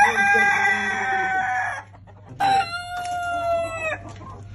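Brahma roosters crowing: two long crows, each held steady in pitch for about a second and a half, with a short gap between them. The second crow drops slightly as it ends.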